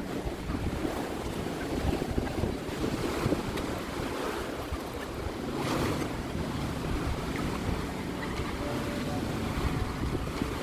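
Surf washing onto a beach, with wind buffeting the microphone; a wave surges up about six seconds in.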